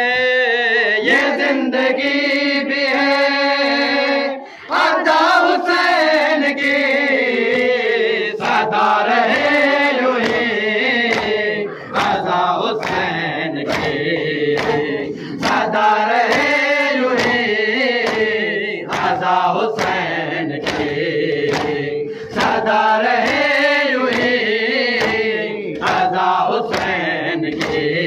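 Male voice reciting a noha into a microphone, with a group of men chanting along in lament, and repeated hand slaps of chest-beating (matam) in time with the recitation. There is a brief pause between lines about four and a half seconds in.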